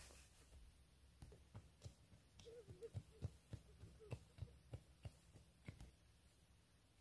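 Near silence, with faint, scattered low taps and clicks and a brief faint wavering sound about two and a half seconds in.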